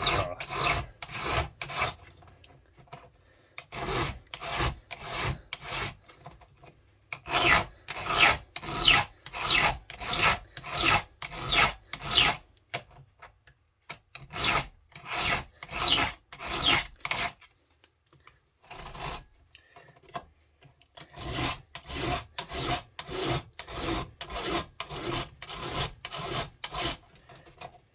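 Hand file rasping on a chainsaw chain, sharpening a chain damaged by hitting a rock or a nail. Strokes come about two a second in runs of several seconds, with short pauses between runs.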